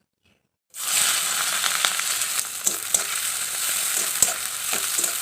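Chopped onion dropped into hot mustard oil in a kadai, starting to sizzle suddenly about three-quarters of a second in and frying steadily, with a few sharp clicks from stirring.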